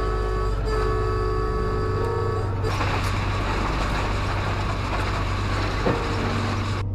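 Train horn sounding for about two and a half seconds, then the loud, dense noise of the train running past, which cuts off suddenly near the end.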